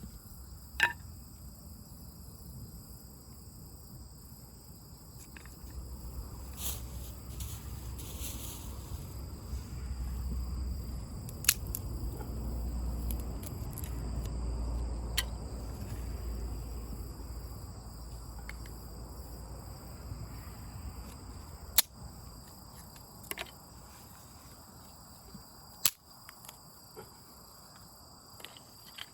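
Wood fire crackling, with a few sharp isolated pops at irregular moments, over a steady high-pitched chorus of insects. A low rumble swells through the middle and fades again.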